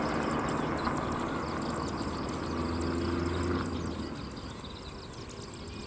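A distant engine's steady hum, fading away about four seconds in, with a thin high insect trill underneath.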